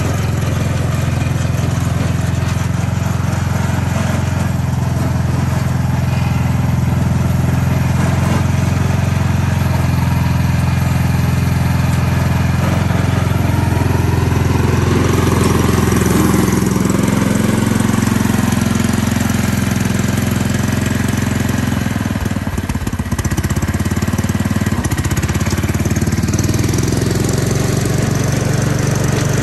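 Old Shiraishi Kouki tracked snowblower's small engine running steadily at a fast idle, its note rising a little about halfway through, with a brief stumble and dip in level about two-thirds of the way in.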